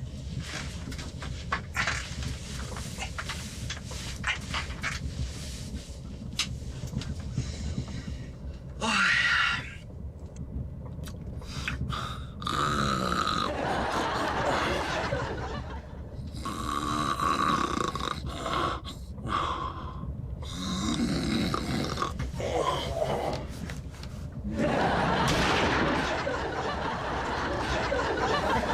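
Snoring and grunting in several drawn-out bouts over the steady rumble of a moving train carriage.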